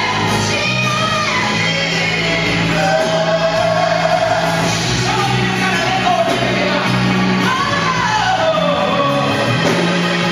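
Live gospel music: a solo singer's voice carries a gliding, held melody over steady sustained low chords from the band, in a large hall.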